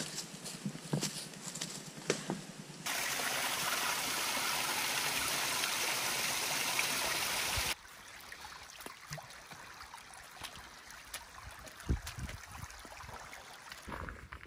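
Footsteps on dry leaves and sticks. About three seconds in, this cuts to several seconds of steady running water, louder than the rest. It then cuts back to quieter footsteps on a wet, rocky trail.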